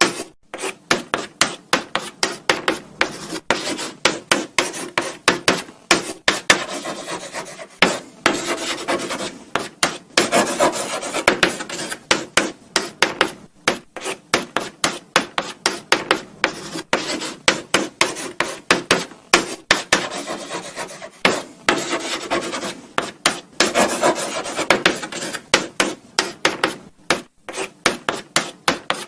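Chalk writing on a blackboard: quick scratchy strokes and taps with short pauses between words.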